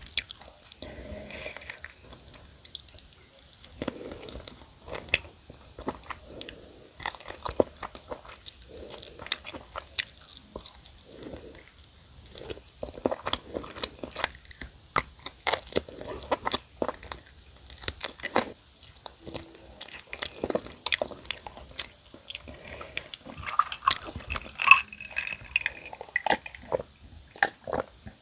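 Close-miked crunching and chewing of crispy fried chicken, with sharp irregular crunches from bites into the crust throughout.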